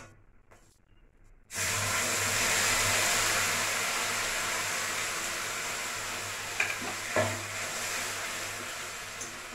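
A wet onion, ginger, tomato and spice paste hits hot oil in a kadai and sizzles: a sudden loud hiss about a second and a half in that eases slowly. About five and a half seconds in there are two sharp metal knocks against the pan.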